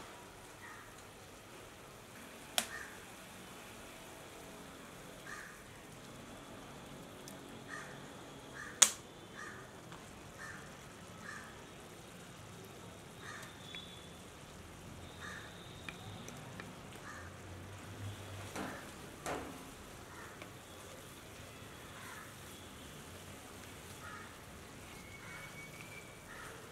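Crows cawing now and then in the background. Two sharp knocks come through, one about two and a half seconds in and a louder one about nine seconds in.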